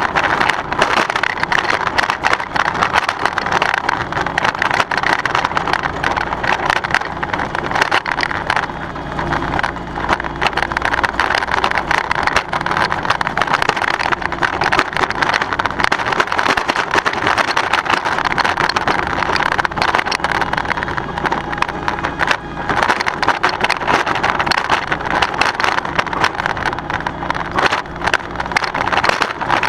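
John Deere X739 lawn tractor's engine running steadily under load as it tows a 48-inch Brinly spike aerator, with a continuous rattle and clatter from the aerator's steel tines and frame rolling over the ground.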